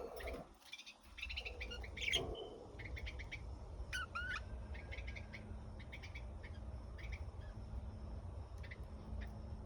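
Small pet parrots chirping and tweeting in short, scattered calls, with one louder call dipping in pitch about four seconds in, over a steady low hum.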